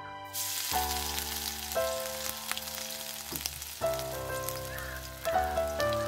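Hot oil sizzling and crackling as food is dropped into a large aluminium pan; the sizzle starts suddenly a moment in and keeps going.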